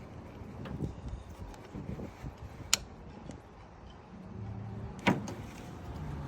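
Small metal clicks and knocks of vise-grip locking pliers working a worn pressure-washer quick-connect fitting loose, with two sharp clicks, one about three seconds in and one about five seconds in. A faint low hum comes in about four seconds in.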